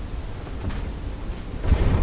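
Blizzard wind rumbling against the house, rising into a louder gust near the end.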